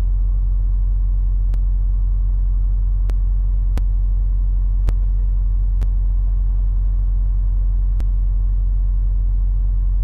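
Heavy goods lorry's diesel engine idling while stationary, a steady low rumble heard from inside the cab. A few faint, irregular clicks sound over it.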